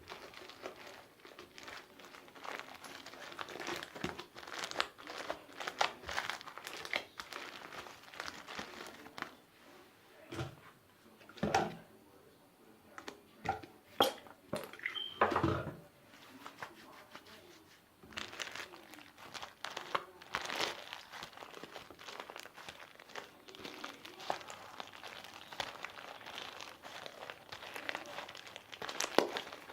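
Homemade confetti slime being kneaded and squished by hand, giving many small crinkling crackles, with a few louder pops and squelches around the middle.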